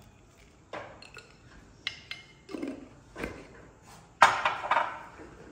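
Light taps and clinks of a spoon against a glass spice jar as crushed chilli is spooned out, a couple of them ringing briefly. A little past four seconds in comes a louder sharp knock with a short scrape as the jar is set down on the counter.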